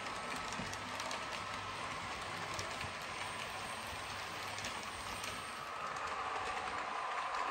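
OO gauge model train running on the track: a steady motor whine with light clicks of the wheels over the rail joints. The whine grows a little louder near the end.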